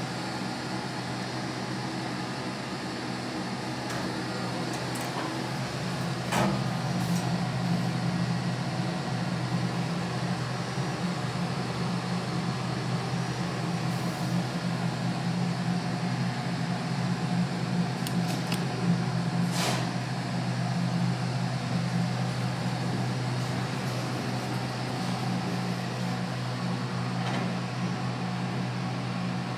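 Steady low mechanical hum inside a vintage Otis traction elevator car, with two sharp clicks, one about six seconds in and one near twenty seconds in.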